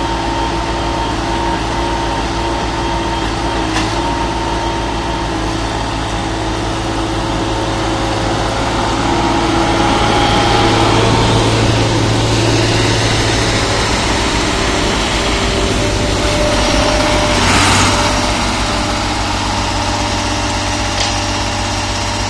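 Diesel engine of a PQRS track-relaying portal crane running steadily, growing a little louder in the middle, with one short noisy burst about three-quarters of the way through.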